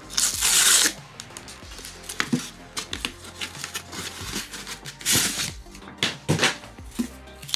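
Tear strip of a cardboard USPS Priority Mail flat rate envelope ripped off in one loud rip at the start. Then the envelope is pulled open with scattered rustling and crinkling, and a short louder rustle about five seconds in.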